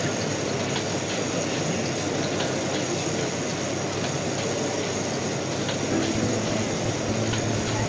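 Meccano model tandem compound mill engine running, its metal rods, cranks and valve gear clattering with a steady run of light clicks over a constant background hum.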